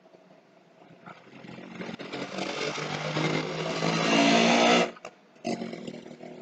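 A motor running in the background. It grows louder over about four seconds and cuts off abruptly about five seconds in, then comes back briefly and fades.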